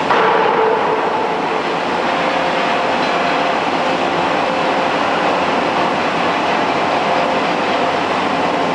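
Steady, loud forge-shop machinery noise, an even din with a few faint held tones, from the plant around a fully hydraulic die forging hammer standing between blows. No hammer strike is heard.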